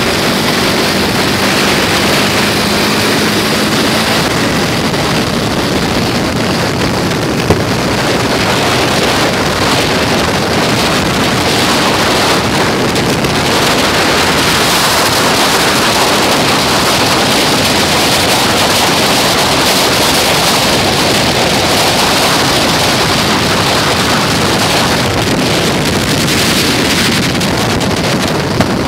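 Loud, steady rush of wind buffeting the microphone, with a faint low engine hum in the first few seconds.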